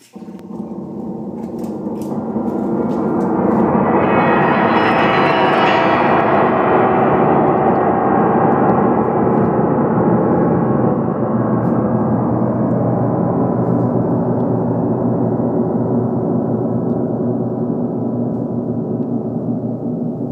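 The strings of the Rubenstein piano, one of the largest pianos in the world, ringing together in a huge roar. It swells over the first four seconds or so, then slowly dies away while still sounding.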